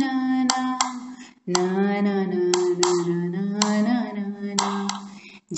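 A woman singing a Hindi Krishna bhajan, holding long drawn-out notes without words, with hand claps keeping time. The voice breaks off briefly twice.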